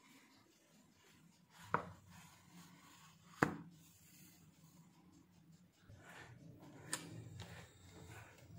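Faint kitchen handling noises: a round metal baking pan of fresh-baked bread knocking twice as it is handled and set down, with a third lighter knock later and soft rubbing in between.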